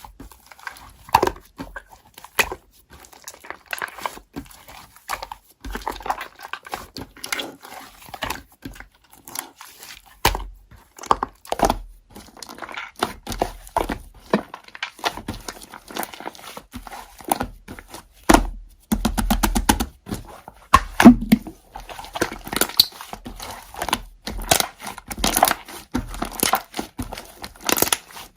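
Slime being squeezed and stretched by hand, making irregular crackling clicks and pops, with a quick rapid run of pops about two-thirds of the way through.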